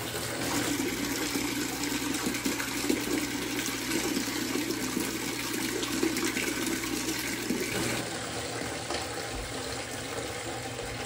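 Tank water pouring steadily in a stream from a PVC drain valve and elbow into a plastic 5-gallon bucket, splashing into the water already collected. The sound turns thinner and a little quieter about eight seconds in.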